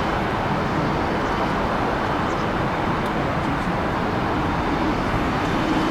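Steady, even rumble of a distant jet airliner's engines at taxi power, blended with outdoor background noise.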